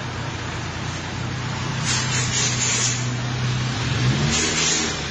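A motor vehicle engine running steadily, with its pitch rising about four seconds in, and two stretches of hiss around two and four seconds in.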